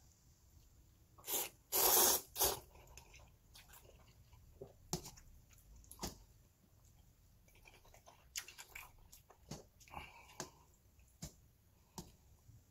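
A man slurps a mouthful of cold jjapaghetti noodles about two seconds in, the loudest sound. Wet chewing and a few sharp clicks of metal chopsticks against a metal lunch tin follow.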